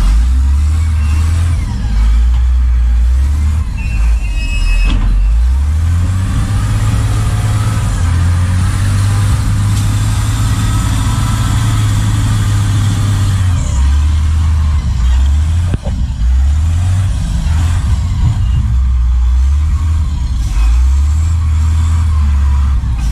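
Large truck's diesel engine running loudly under load, its revs rising and falling again and again.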